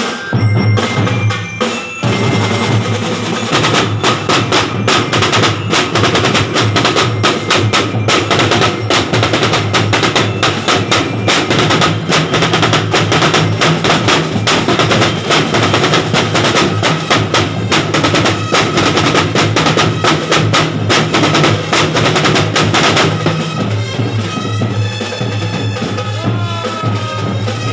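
Drum and bugle corps drumline playing a fast, dense passage on snare and bass drums over a steady low sustained tone. About 23 seconds in, the drumming thins out and pitched sliding tones come forward.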